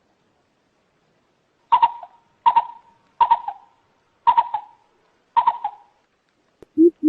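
Coucal calls: five short, sharp, higher calls, spaced less than a second apart. Near the end a fast, even run of deep hoots begins.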